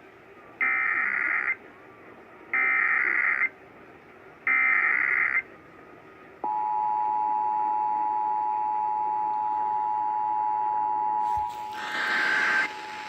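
Emergency Alert System test tones: three one-second bursts of SAME digital header data, evenly spaced, then the steady EAS two-tone attention signal (853 and 960 Hz together) starting about six seconds in. Near the end, more header data bursts start over the attention tone.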